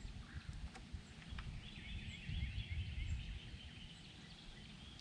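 Wind buffeting the camera microphone as a low, uneven rumble, with a high, rapid trill lasting about three seconds from about a second and a half in.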